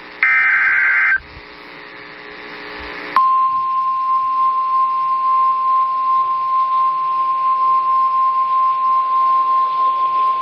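NOAA Weather Radio Emergency Alert System transmission. It opens with the last of the three SAME digital header bursts, a buzzy data screech about a second long. After two seconds of hiss, the steady 1050 Hz warning alarm tone starts about three seconds in and holds, signalling that a warning-level alert is about to be read.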